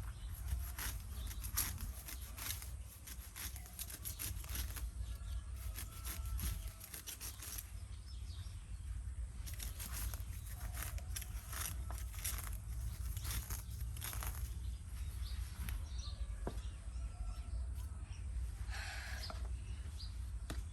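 Grass and weeds being cut by hand: a run of irregular crisp slicing and tearing strokes, several a second in places, with short pauses between bursts.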